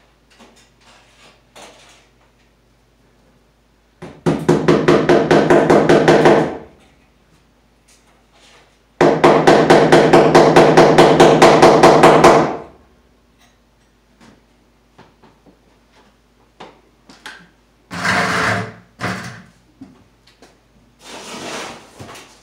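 A tool working in two bursts of rapid, even rattling strokes, about eight a second, each lasting a few seconds. A few separate knocks and clatters follow near the end.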